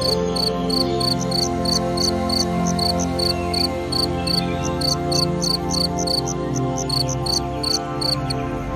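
A cricket-like insect chirping in short, evenly spaced high chirps, about three a second, over a steady ambient music drone.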